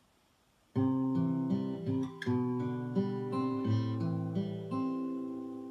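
Acoustic guitar played solo, chords strummed and ringing and changing every half second or so, starting suddenly under a second in: the instrumental intro to a song.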